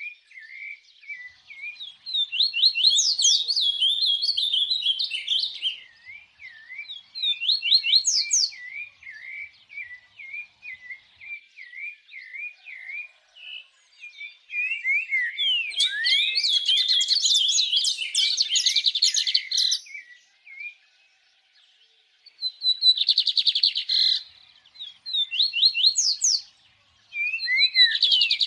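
Small songbirds singing: a continuous run of quick chirps and short slurred whistles, with louder, denser bursts of rapid notes about halfway through and again near the end, and a brief lull about three-quarters of the way in.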